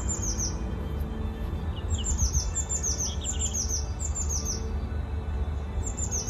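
Songbird singing in a garden, repeating a quick run of three or four high, falling chirps again and again, with a couple of lower chirps in the middle. A steady low rumble runs underneath.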